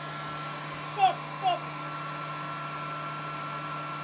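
Handheld hair dryer blowing steadily on a dog's wet coat. About a second in come two short, falling, high-pitched cries, about half a second apart.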